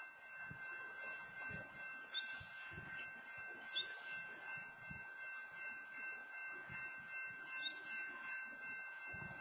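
A bird gives three short whistled calls that slide downward in pitch, over a steady faint high-pitched hum.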